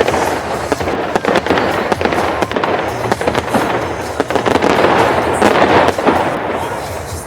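Fireworks going off in a dense barrage, many sharp bangs and crackles overlapping, thickest about a second in and again near five to six seconds.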